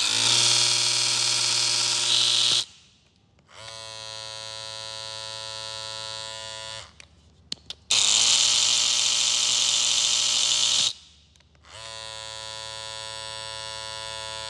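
Two cordless hair trimmers switched on in turn, twice each. A BaBylissPRO FX Skeleton trimmer runs with an extremely loud buzz for about two to three seconds, then a Bevel trimmer runs for about three seconds, very quiet by comparison.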